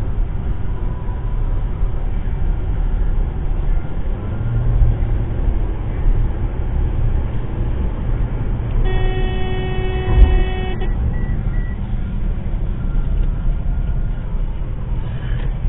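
Steady road and engine noise heard from inside a moving car. About nine seconds in, a car horn sounds for about two seconds, with a sharp knock partway through it.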